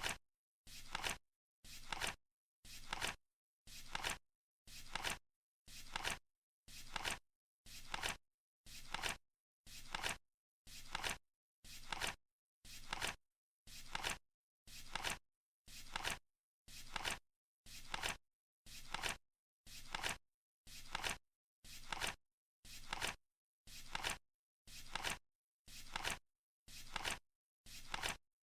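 Flip-clock countdown timer sound: a flap flipping over once a second, each flip a short rustle ending in a sharp click.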